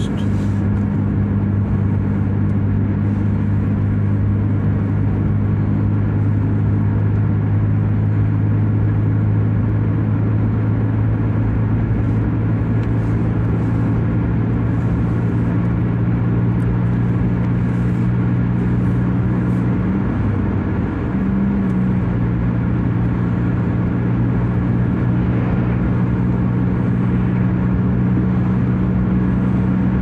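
Steady drone of a car driving at highway speed, heard from inside the cabin: a constant low engine and road hum. It wavers and dips slightly for a moment about two-thirds of the way through.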